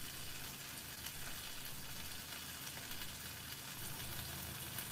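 Risotto cooking in a pot on the stove, giving a faint, steady sizzle with a low hum underneath.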